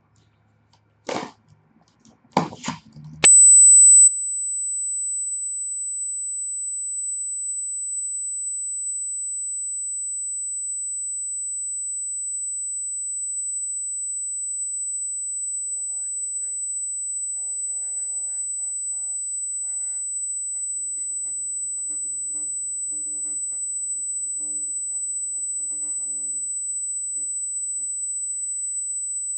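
A few brief handling noises, then a steady high-pitched electronic tone that cuts in suddenly about three seconds in. It is very loud for its first second and then holds steady throughout. It is an audio fault in the recording.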